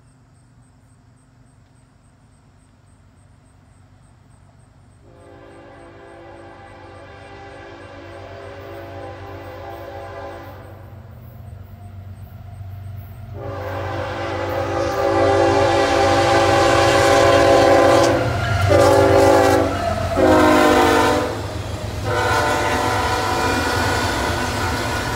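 Approaching CSX freight train led by GE ES44AH diesel locomotives sounding its air horn in the grade-crossing pattern: two long blasts, a short one and a final long one, a chord of several steady notes. Under the horn the diesel rumble and wheel noise build steadily, and near the end the double-stack container cars rumble and clatter past close by.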